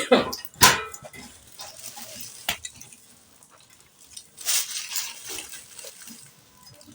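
A woman's staged coughing fit: two harsh coughs right at the start and another bout of coughing about four and a half seconds in. She is not actually ill; the coughing is put on as a prank.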